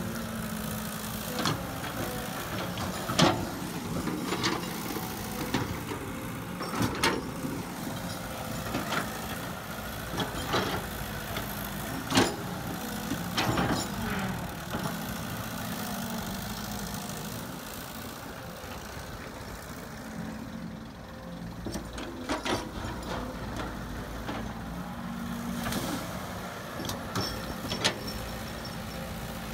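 Caterpillar tracked excavator's diesel engine running steadily under load while it digs and loads soil. Sharp knocks and clanks come every second or few seconds from the working bucket and boom, loudest about 3 and 12 seconds in.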